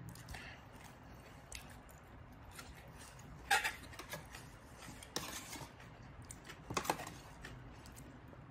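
Metal spoon clinking and scraping against a stainless steel tray of papaya salad, with three louder clinks in the middle and small clicks and rustles of food between.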